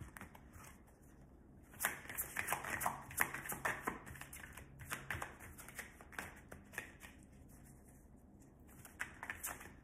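A deck of tarot cards shuffled by hand, overhand: a quick run of soft flicks and slaps of card on card, starting about two seconds in and thinning out after about five seconds.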